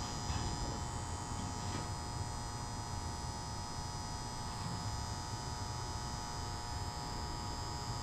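A steady hum with an even high-pitched whine above it, over a low rumble.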